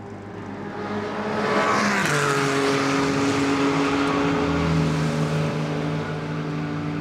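Race car engine running at high revs, growing louder over the first second and a half; its pitch drops sharply about two seconds in, then holds steady.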